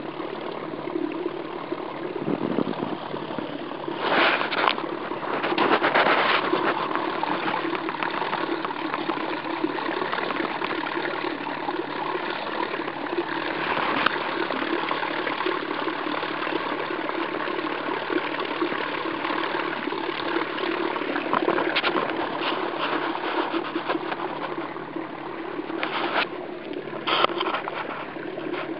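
30 lb-thrust Minn Kota electric trolling motor running at top speed on a kayak: a steady hum over the rush and spray of water at the stern. There are a few louder bursts of noise about four and six seconds in, and again near the end.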